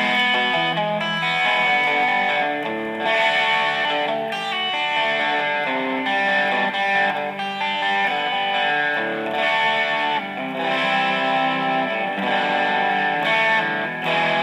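Electric guitar played through a 1985 ProCo Rat distortion pedal with its controls at noon: a run of distorted chords, each left to ring for about a second before the next.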